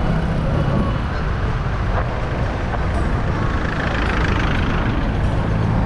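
City street traffic: motor vehicles running, with a steady low engine rumble close by.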